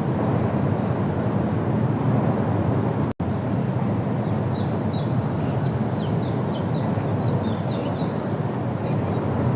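A steady low outdoor rumble, broken by a very short gap about three seconds in. About halfway through, a bird gives a quick run of short, high chirps lasting about three seconds.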